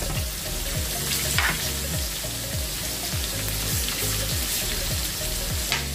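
Small fish (usipa) and onions frying in hot oil: a steady sizzle. Underneath it, a low falling thud repeats about twice a second.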